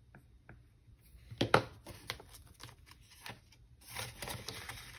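Cash envelopes and dollar bills being handled: paper rustling with light taps and clicks, the sharpest about a second and a half in and the rustling busier near the end.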